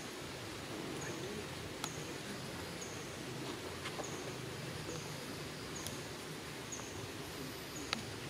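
Outdoor ambience: a steady hiss with a short, high chirp repeating about once a second, and a couple of faint clicks.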